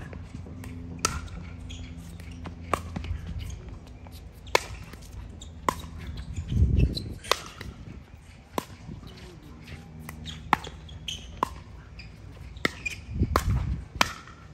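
Pickleball paddles striking the ball in a rally: sharp pops about once a second, with some fainter ticks between them. Two short low rumbles come about halfway through and near the end.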